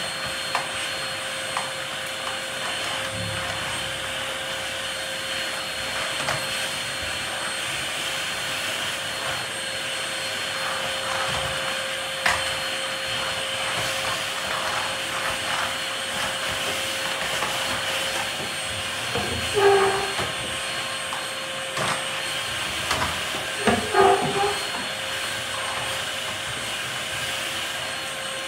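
Canister vacuum cleaner running steadily with a constant motor whine while its floor brush is worked over a tiled floor. A few short knocks stand out, the loudest about two-thirds of the way through and again near the end.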